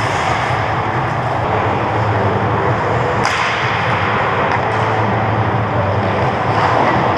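Ice hockey play in an indoor rink: skates scraping and carving the ice and sticks working the puck, heard as a loud, steady wash. There is one sharp crack about three seconds in.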